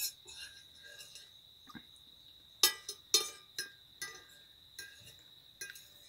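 Metal fork clinking and scraping on a plate as food is picked up: a handful of sharp clinks, mostly in the second half, about half a second apart. A steady high whine sounds throughout.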